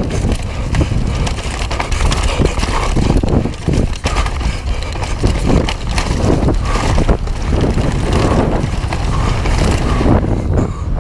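Mountain bike ridden fast downhill on a dirt trail: tyres running over loose dirt and the bike rattling with many sharp knocks over rough ground, under heavy wind rumble on the microphone.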